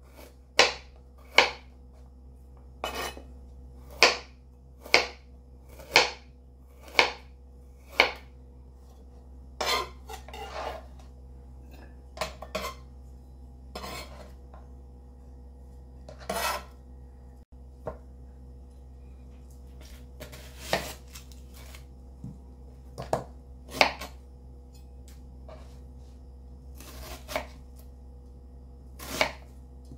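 Chef's knife slicing ginger root on a plastic cutting board: sharp knocks of the blade hitting the board, about one a second for the first several seconds, then more spaced and irregular. Near the end the knife cuts through a red onion with a few more knocks.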